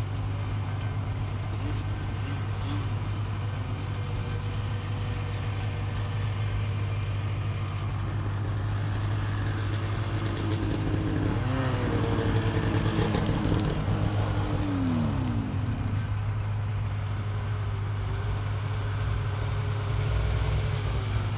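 Two-stroke snowmobile engine running steadily. About halfway through the pitch rises briefly, then falls away over a few seconds as the throttle eases off, before settling back to a steady run.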